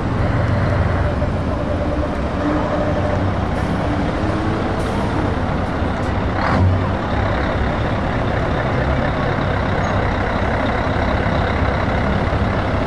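Heavy truck diesel engines running in a slow queue, the Scania R-series tractor unit nearest and loudest as it pulls up. Steady low rumble, with one short loud burst about six and a half seconds in.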